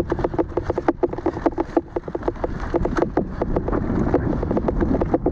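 Mountain bike rolling fast over a dry, rough dirt trail: a rapid, uneven clatter of ticks and knocks from the bike rattling over the ground, over a low rumble of tyres and wind on the microphone.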